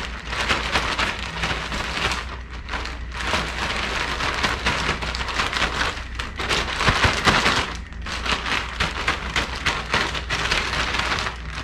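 Zip-top plastic bag crinkling and rustling as it is shaken by hand, with a fish steak and a seasoned flour-and-cornmeal breading mix tumbling inside to coat the fish. The shaking comes in spurts with a few brief pauses.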